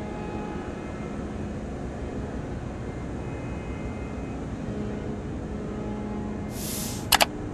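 Steady drone of a tanker's steering gear room machinery, with a faint constant hum. Near the end an added hiss and two sharp clicks of an on-screen sound effect come in.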